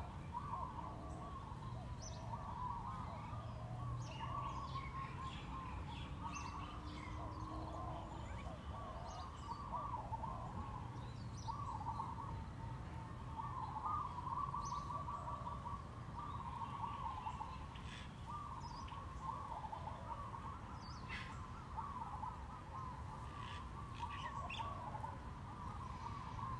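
Songbirds chirping and twittering nonstop, their calls overlapping, with a steady low background hum underneath.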